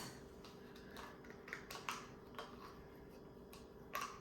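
A handful of light, sharp clicks and taps of small utensils being handled on a counter, scattered irregularly, the clearest about two seconds in and near the end, over a faint steady hum.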